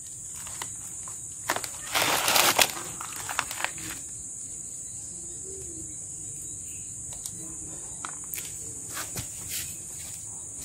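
Steady high-pitched drone of insects, with a short burst of rustling and cracking about two seconds in and scattered light clicks of handling.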